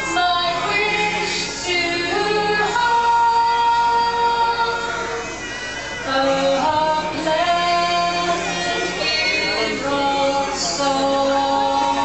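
Several voices singing together, a slow song with long held notes.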